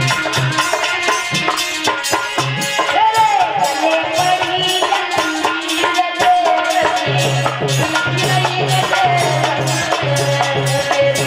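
Instrumental interlude of an Indian folk-devotional song: a fast, even percussion beat with rattles under a gliding melody line, joined about seven seconds in by a low, repeated bass note.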